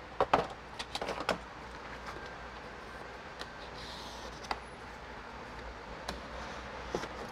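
Light clicks and knocks of window-tinting tools and hands against a truck's door and window glass: a cluster in the first second and a half, then single taps every second or so, over a steady low hum.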